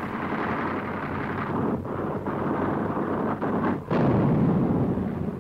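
Continuous rumble of shell explosions and artillery fire, with a fresh blast about two seconds in and a louder one near four seconds.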